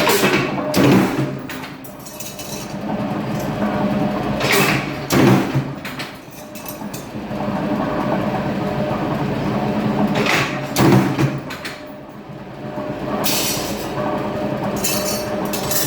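Corner-forming machine for sheet-metal HVAC ducting running with a steady motor hum, with a loud mechanical stroke about every five seconds.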